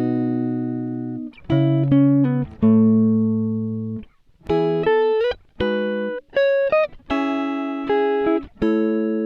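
Background music: a plucked guitar playing notes and chords that ring out and fade, in short phrases.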